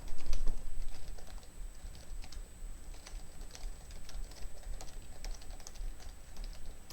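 Typing on a Mokibo keyboard, a compact Bluetooth keyboard with a touchpad built into its keys: an irregular run of key clicks, livelier in the first second.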